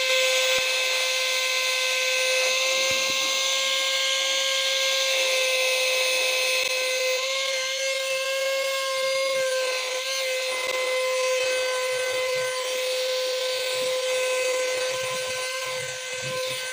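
Kiwi vacuum cleaner running steadily at full power: a high, even motor whine over the rush of air.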